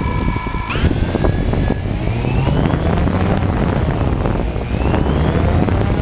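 A multirotor drone's propellers whine and climb in pitch as it throttles up, starting a little under a second in, and rise again a couple of times after. Heavy rumbling wind noise on the microphone runs under it and is the loudest sound.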